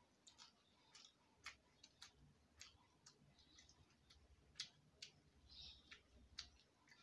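Quiet, irregular wet clicks of chewing and lip smacking, about two a second, from a person eating rice and curry by hand, with a couple of short soft rustles.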